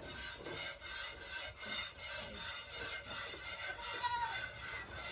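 Goat being milked by hand: rhythmic rasping squirts of milk streaming into a pail, about two strokes a second.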